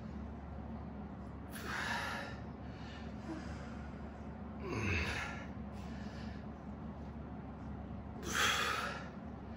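A weightlifter's hard, forceful breaths during barbell bench-press reps: three sharp breaths about three seconds apart, one with each press, the last the loudest. A steady low hum runs underneath.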